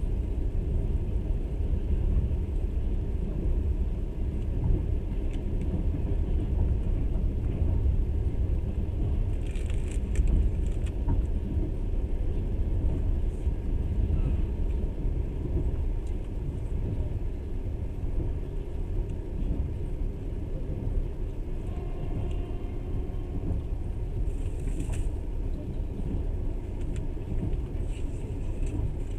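Passenger train carriage running along the track: a steady low rumble throughout, with a couple of brief faint hisses, around ten seconds in and again a few seconds before the end.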